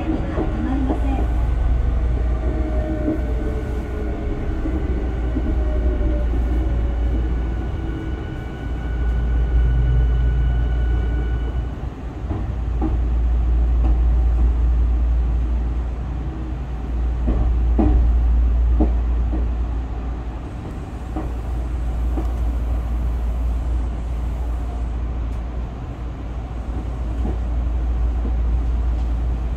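Inside a Tokyu 5000 series electric train while it runs: a steady, loud low rumble from the running gear and track that swells and fades. Over the first twelve seconds or so there are high steady tones and a whine that falls in pitch, and later a few sharp clicks.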